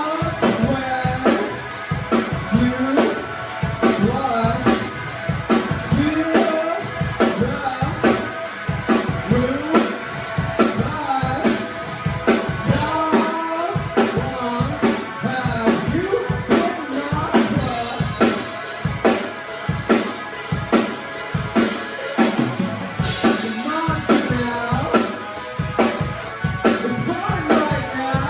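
A band playing a song live: the drum kit keeps a steady beat under guitar, with a voice singing a wavering melody over it.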